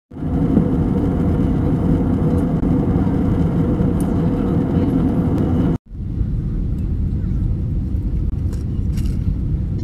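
Steady cabin noise of an Airbus A320 in flight, engine drone and rushing airflow heard from inside the cabin, with a faint steady hum. It cuts out for a moment about six seconds in and resumes slightly quieter.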